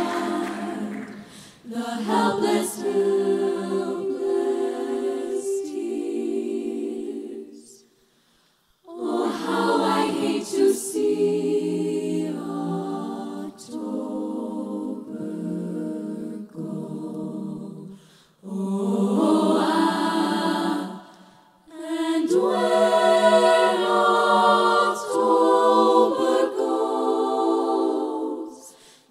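Female vocal jazz ensemble singing a slow ballad unaccompanied, in close harmony. The sung phrases are separated by short silent breaks.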